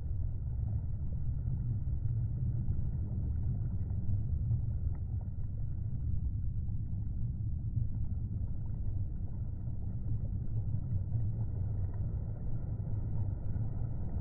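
Jet engines of two display jets flying in close formation, heard from the ground as a steady low rumble.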